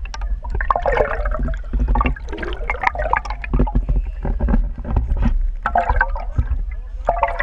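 Sea water sloshing and gurgling around an underwater camera held just below the surface, with a steady deep rumble and many scattered clicks and pops.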